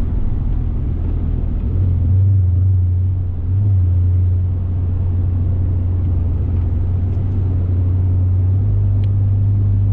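Steady low drone of a car heard from inside the cabin while driving, engine and tyre noise together. The hum gets a little louder about two seconds in.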